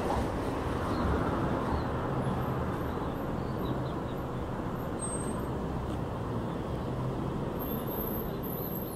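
Steady low rumble of outdoor background noise, like distant road traffic.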